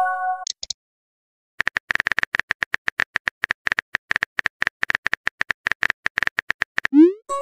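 Texting Story app sound effects: a chiming message-sent tone dies away just after the start, then rapid, uneven keyboard typing clicks for about five seconds as a message is typed, and near the end a short rising whoosh and chime as the message is sent.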